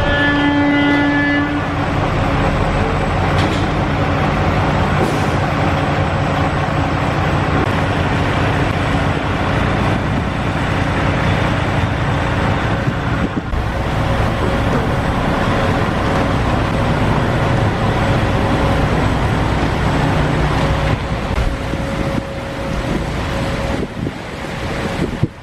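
Industrial woodworking machinery running: loud, steady mechanical noise with a constant hum, and a brief ringing tone in the first second and a half.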